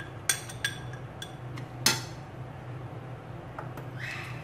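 A metal spoon and a small glass bowl clinking against a plate of breadcrumbs as white pepper is tapped out. There are a handful of sharp clinks, the loudest about two seconds in, then a short rustle near the end.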